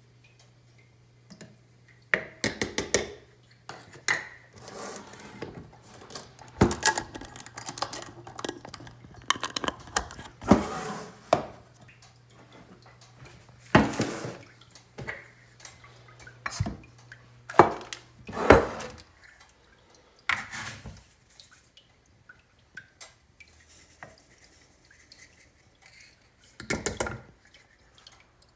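Intermittent knocks, clinks and scrapes from a glass French press carafe and a metal measuring scoop being handled and set down on a kitchen counter.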